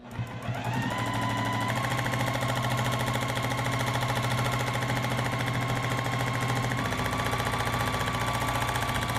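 Juki sewing machine stitching free-motion quilting. The motor whine rises as it speeds up over the first couple of seconds, then settles into a steady fast run with rapid, even needle strokes, shifting slightly in pitch about seven seconds in.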